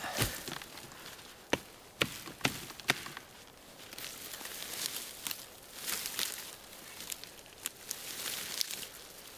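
Dry brush being cleared with a hatchet and bare hands: a handful of sharp knocks and snaps in the first three seconds, then dry twigs crackling and moss and roots tearing as they are pulled up.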